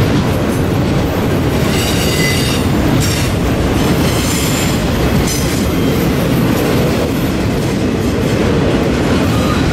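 Autorack cars of a freight train rolling by: a steady, loud rumble of steel wheels on rail, with brief high-pitched wheel squeals about two seconds in and again around four seconds.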